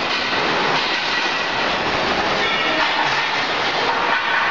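Machinery of a CRT television and monitor dismantling line running, a steady loud mechanical din.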